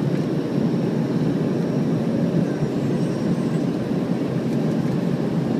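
Steady cabin roar inside an Embraer ERJ-135 regional jet in flight: airflow over the fuselage mixed with the drone of its two rear-mounted turbofan engines.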